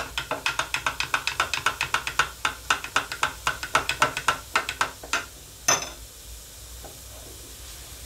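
Metal teaspoon clinking rapidly against the inside of a glass measuring jug, about five clinks a second, while stirring potassium hydroxide into glycerin to dissolve it for liquid soap. The clinking stops a little after halfway with one louder clink.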